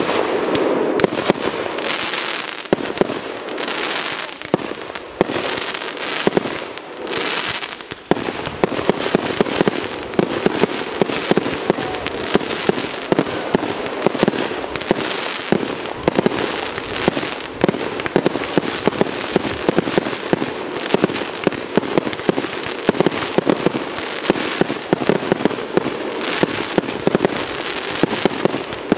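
Fireworks display with aerial shells bursting and crackling. For the first eight seconds there is a burst every second or two; from about eight seconds in comes a dense, continuous barrage of rapid bangs and crackles.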